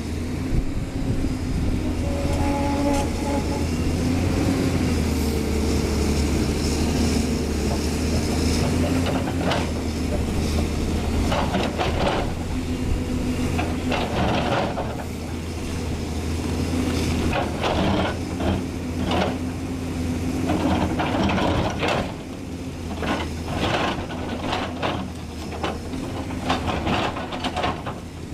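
Caterpillar 320C L excavator's diesel engine running steadily under load, with the bucket teeth scraping and knocking against a rock-and-earth cut face many times and loosened stone clattering down.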